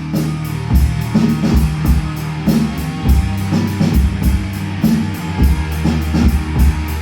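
Rock band playing live, an instrumental passage of electric guitar, bass and drum kit with a steady beat on kick drum and cymbals.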